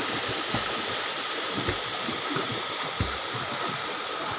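Water splashing as several people swim through a river pool, over a steady rush of water, with a few soft low thumps.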